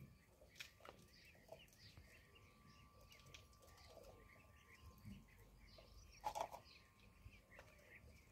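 Ducklings peeping faintly, many short high chirps overlapping, with one louder call or knock a little over six seconds in.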